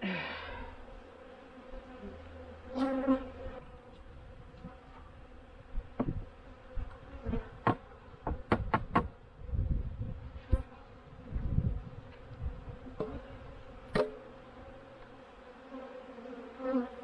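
Honeybees buzzing in a steady hum around an open hive that robber bees are raiding, with a few bees sweeping close past the microphone. Several sharp wooden knocks come in the middle and near the end as the hive boxes and bottom board are handled.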